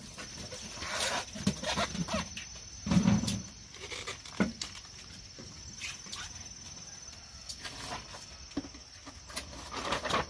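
Crickets shrilling steadily, with scattered knocks and rustles of handling on top; the loudest is a heavier thump about three seconds in.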